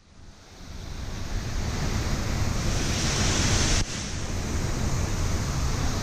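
Waterfall pouring, a steady rushing of water with a heavy low rumble, fading in over the first second or so and briefly dropping away just before the four-second mark.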